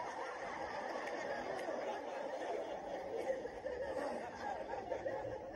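An audience laughing together, many people chuckling and snickering at once; it breaks out suddenly and carries on for about five seconds.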